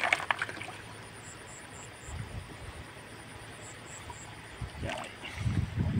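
Water splashing and sloshing in a shallow pond as someone wades and gropes by hand: a sharp splash at the start, a low slosh about two seconds in, and a run of heavier sloshes near the end.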